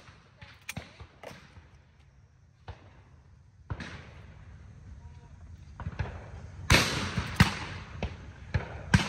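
Two shotgun shots about three-quarters of a second apart, a pair fired at sporting clays targets, a little past the middle. Before them only a few small knocks and a faint steady hiss.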